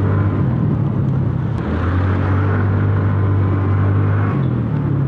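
Small motorcycle engine running steadily under way, with wind rushing over the microphone; the engine note shifts about four seconds in.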